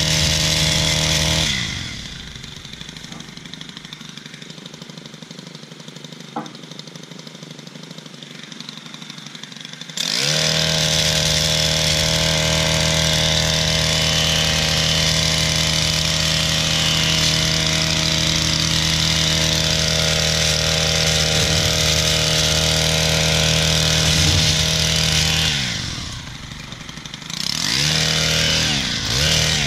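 Gas-powered Stihl extended-reach hedge trimmer working a hedge. The engine runs at full throttle, drops to idle about two seconds in, and revs back up at about ten seconds. It then holds steady at high revs until it eases off near the end and is blipped up again twice.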